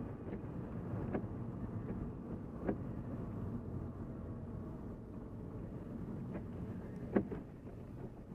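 Interior noise of a Volvo S40 driving in city traffic, heard from inside the cabin: a steady low engine and road rumble. Three short knocks come through it, the sharpest about seven seconds in.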